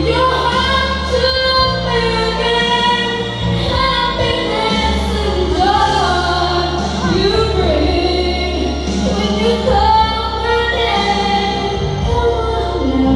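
A woman singing a slow ballad into a microphone over instrumental accompaniment with a steady bass line, her voice holding and bending long notes.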